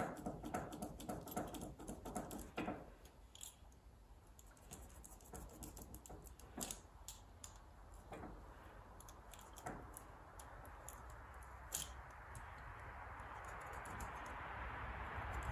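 Excess rubber tire-plug strands being cut off with quick repeated strokes, then scattered light clicks and taps of handling. Near the end a steady hiss grows louder.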